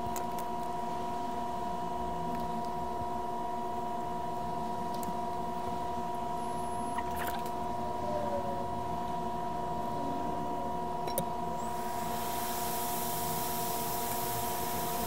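Hot air rework gun switched on about twelve seconds in, blowing with a steady hiss. Under it runs a steady whine of several tones, with a few light clicks of probes and tools on the bench.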